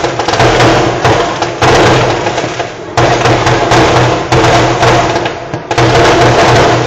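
A fireworks barrage going off close by: loud shots about every second and a half, each followed by a dense crackle that fades before the next.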